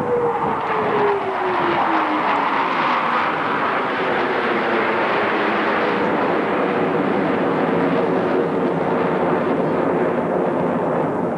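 Jet engines of five Blue Angels F/A-18 Hornets, GE F404 turbofans, at high power in a formation pass: a whine falls in pitch over the first three seconds as the jets go by, then steady, loud jet noise with a held tone.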